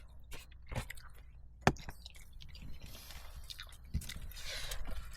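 Someone eating octopus ramen close to the microphone: chewing and mouth noises, with a string of short clicks, the sharpest about a second and a half in, and a hissing stretch near the end.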